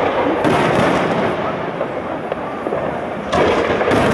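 Aerial fireworks shells bursting, with sharp reports about half a second in and twice more near the end, over a steady wash of noise from the display.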